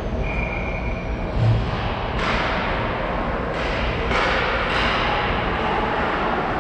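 Ice hockey game sounds in an arena: a dull thud about a second and a half in, then several short, sharp hissing scrapes over a steady arena hum.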